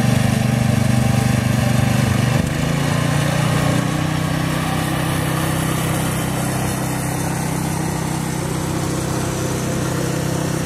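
Tractor engines running in a parade: a small garden tractor's engine loudest as it passes close, then about two and a half seconds in its note gives way to the steady running of a larger tractor's engine as it approaches.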